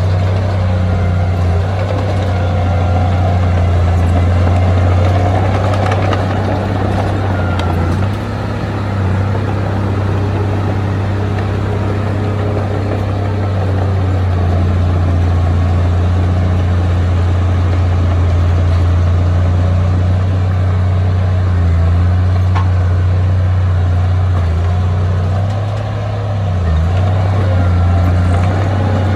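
Diesel engine of heavy earthmoving equipment running steadily under load, a deep continuous drone with a slight dip in level twice.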